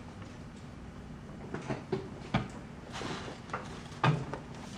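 A few short knocks and taps of objects being handled on a tabletop, with two louder bumps about two and a half and four seconds in, over a low room hum.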